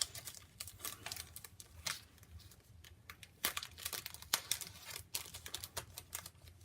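Paper and packaging crinkling and rustling in irregular crackles as a pack of origami tissue foil is handled, busier in the second half.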